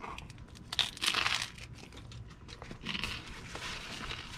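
A person biting into and chewing a slice of cream cheese toast close to the microphone, crunching; the loudest bite comes about a second in, with another run of crunchy chewing near three seconds.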